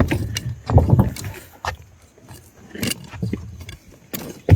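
Fishing gear being carried and set down: irregular knocks and thumps with some rattling, loudest near the start and about a second in, with a sharp knock at the end.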